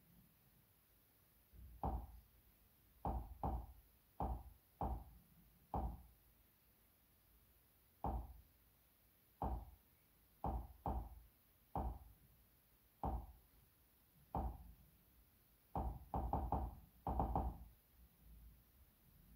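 Menu navigation clicks from the Nvidia Shield Pro's Plex interface as the library is scrolled: about twenty short soft knocks, irregularly spaced, with a quick run of several near the end.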